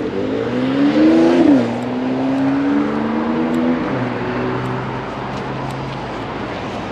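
A motor vehicle accelerating: its engine pitch rises, drops sharply at a gear change about a second and a half in, climbs slowly again, then settles and fades.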